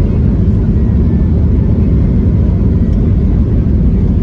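Cabin noise of a Boeing 737 MAX 8 airliner on its landing rollout, with spoilers deployed: a loud, steady low rumble heard from inside the cabin.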